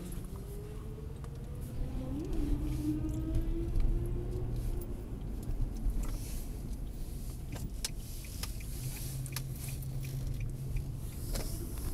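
Car engine and road noise heard from inside the cabin while driving slowly. A rising engine note runs through the first four seconds or so, over a steady low rumble, with scattered small clicks and rattles.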